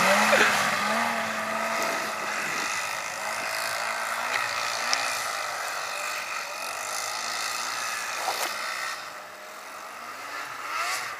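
Engines of a Yamaha snowmobile and a small youth ATV running, their pitch rising and falling again and again as they are throttled, fading as the machines pull away.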